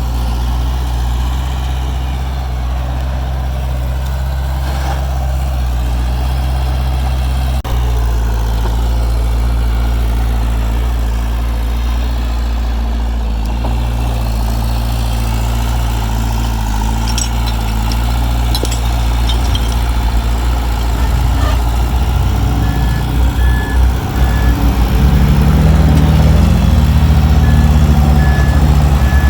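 Heavy diesel engine of earthmoving machinery running steadily, getting louder and rougher from about three-quarters of the way in as it works harder. A reversing alarm beeps in short runs near the end.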